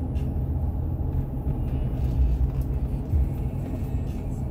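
Steady low rumble of a car driving, engine and tyres on the road, heard from inside the cabin.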